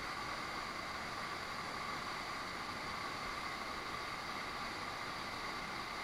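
Steady rushing of a waterfall and the fast stream below it: an even noise with no breaks.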